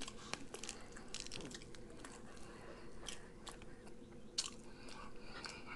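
Close-miked eating sounds: a scatter of soft clicks and smacks from chewing and from rotisserie chicken being pulled apart by hand.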